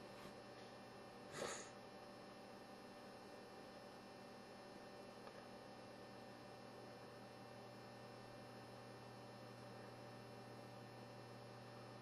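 Near silence: a low steady electrical hum in the room, with one brief soft noise about one and a half seconds in.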